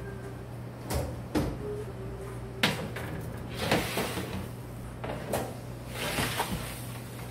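A stainless-steel deck oven's door being opened and metal baking trays slid in onto the oven deck: a series of metal clanks and scrapes, over a steady low hum.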